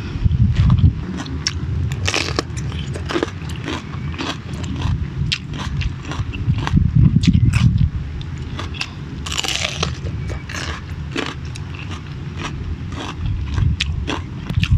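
Close-miked chewing and crunching of raw bitter melon (ampalaya): many small crackly clicks over a low rumble.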